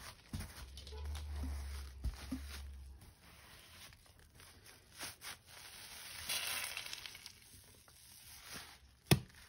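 Soapy sponge being squeezed and handled, with a short hissing stretch a little past halfway and a single sharp click near the end. A low hum runs through the first few seconds.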